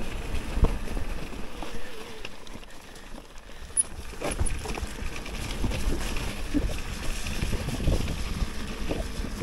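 Mountain bike riding down a snowy trail: rough tyre noise with knocks and rattles from the bike, and wind on the microphone. It eases off for a second or two about three seconds in, then picks up again.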